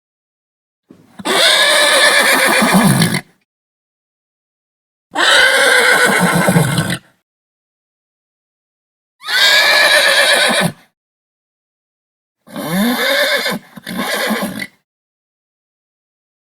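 Horse whinnying: four separate neighs, each about two seconds long, the last one broken in two.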